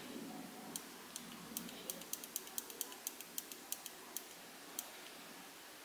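Small tactile push button on a DIY digital clock kit clicking in a quick run, about fifteen presses in some four seconds and fastest in the middle, each press stepping the hour setting up by one.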